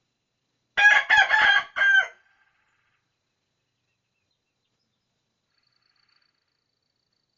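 A single loud bird call in four quick connected parts, starting about a second in and lasting about a second and a half, then quiet.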